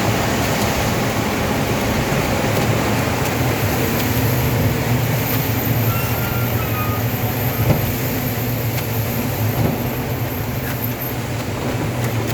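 Large river in flow, heavy water rushing as a steady broad rush, with a low steady mechanical hum underneath.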